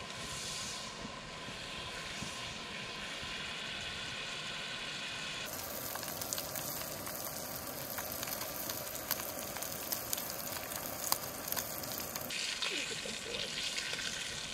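Trout frying in butter in a pan on a small gas camp stove: a steady sizzle over the burner's hiss, turning denser and crackly with many small pops from about five seconds in until a few seconds before the end.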